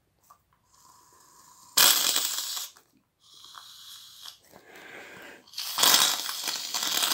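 Aerosol can of shaving foam spraying into a bowl: a loud hiss of about a second starting two seconds in, softer hissing after it, then a longer loud hiss from about six seconds in.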